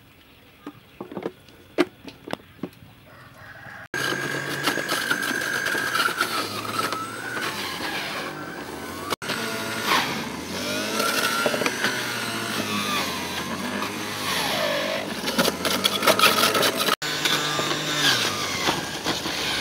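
Electric centrifugal juicer motor starting suddenly about four seconds in and running loudly and steadily while water apple slices are pushed down its chute, its pitch wavering as the fruit is shredded. A few light clicks come before it starts.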